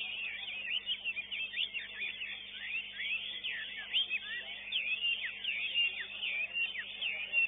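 Caged songbirds singing at a bird-song contest: a dense, continuous mix of rapid chirps and quick sweeping whistles from several birds at once.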